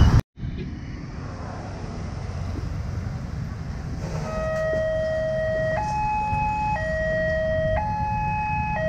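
Railway level-crossing warning signal starting about four seconds in: an electronic two-tone sound alternating between a lower and a higher tone about once a second, warning of an approaching train. Road traffic noise runs underneath.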